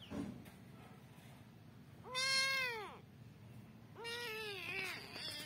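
A kitten meowing twice. The first is a loud, high meow about two seconds in whose pitch rises and then falls. The second, about four seconds in, is longer and wavering.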